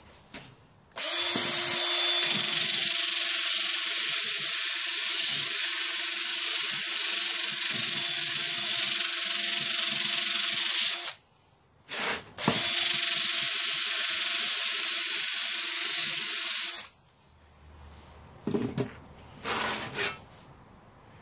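Makita cordless drill spinning a small flap sander against a rusty steel Disston handsaw blade, polishing it: a steady motor whine under a loud hiss of abrasive on steel. It stops about eleven seconds in, gives one short burst, then runs again for about four seconds. Near the end come two short, quieter rubs.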